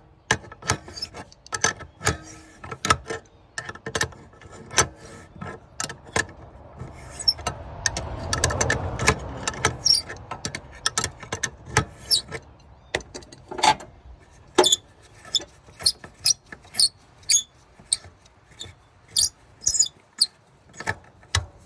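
Hand tools and engine-bay parts clicking and knocking as a pipe under the hood is loosened and pulled back, with short squeaks now and then and a longer scraping rustle about eight seconds in.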